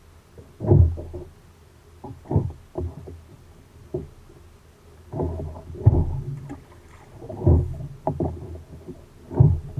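A fishing kayak being paddled, with a stroke about every one and a half to two seconds and knocks against the hull between strokes.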